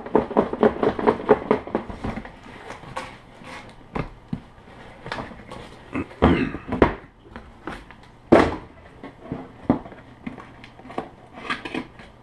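Cardboard boxes being handled: rapid scraping and rustling of cardboard as a product box is worked out of a shipping box, then scattered knocks of the box against a wooden table, the loudest about eight seconds in.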